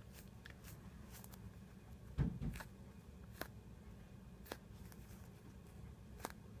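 Faint handling of a foam squishy toy: light clicks and rustles from fingers squeezing and turning it, with a soft low thump a little over two seconds in, over a steady low room hum.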